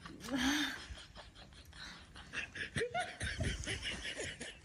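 A person's stifled laughter: a snicker near the start, then choppy, broken chuckling in the second half.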